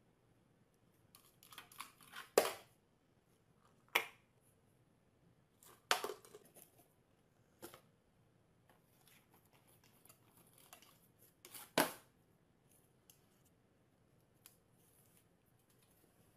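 Faint, scattered clicks and knocks a second or two apart, over quiet room tone: light objects, a tin can and a cardboard box, set down and moved on a glass tabletop, with a small dog's claws on the glass.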